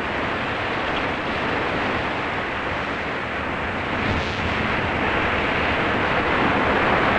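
Steady rushing noise of wind and rough, breaking sea, with wind noise on the microphone.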